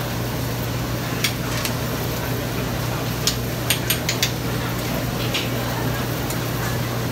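Oyster omelettes frying on a large iron griddle: a steady sizzle over a constant low hum. A metal ladle clinks against a steel bowl several times, with a quick run of clinks about three to four seconds in.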